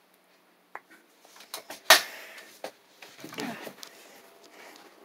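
Handling noise: a run of sharp knocks and clicks, the loudest about two seconds in, followed by scuffing and rustling, from the phone being handled and moved and small die-cast toy cars knocking against a shelf.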